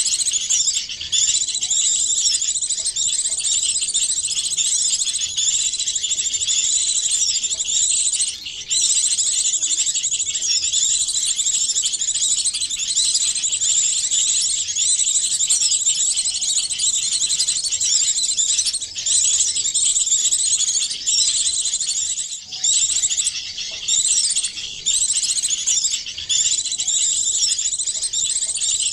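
Bird-lure recording: a dense, unbroken chorus of many small songbirds chirping and trilling at once, high-pitched, with only brief dips in between.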